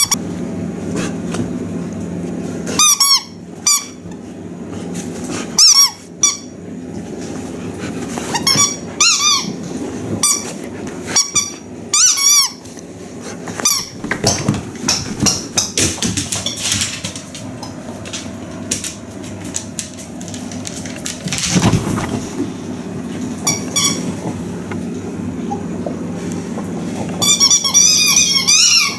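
Squeaky toy being chewed by a labradoodle: repeated short high squeaks in clusters, with a long run of rapid squeaks near the end, over rustling from fur and handling against the microphone.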